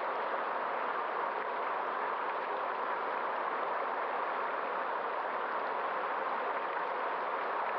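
Steady rushing of a flowing stream, an even hiss of water with no rise and fall.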